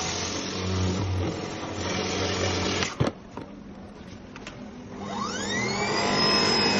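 Kärcher electric pressure washer's motor running with a steady hum, cutting off with a click about three seconds in. Near the end it spins up again with a rising whine that levels off to a steady high tone.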